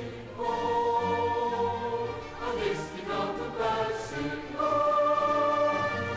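Choral music: a choir singing long held notes, with the chord changing a few times and the fullest, loudest chord coming in about two-thirds of the way through.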